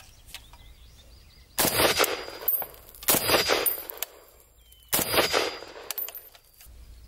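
Three rifle shots from a Zastava M77 in .308, about a second and a half apart, each with a short tail. A brief high metallic ring follows each shot.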